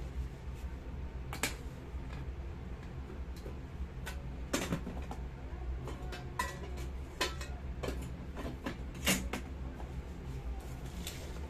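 Scattered light clinks and knocks of kitchenware as a stainless steel lid is set on a small electric cooking pot and a plastic rice paddle is handled, over a steady low hum.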